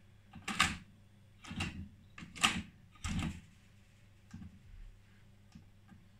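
Akai HX-M7R cassette deck's transport keys being pressed and its tape mechanism clunking as it changes mode: a series of short clicks and clunks, about six over a few seconds, with quiet between them.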